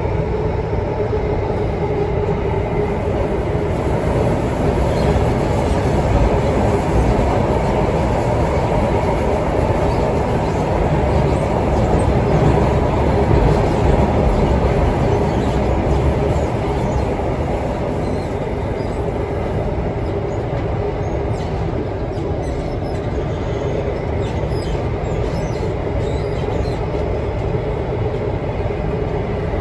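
Interior running noise of a North East Line metro train travelling through its tunnel, heard from inside the carriage: a steady, dense rumble of wheels on rail and motors, a little louder in the middle and easing slightly later on.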